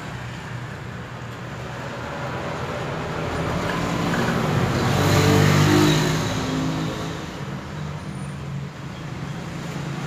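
A road vehicle passing by, its engine and road noise swelling to a peak a little past halfway and then fading.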